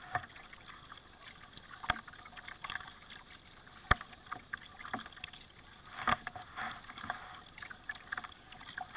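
Kayak paddling on a river: paddle strokes splashing and dripping in the water. A few sharp knocks break in, the loudest about four seconds in.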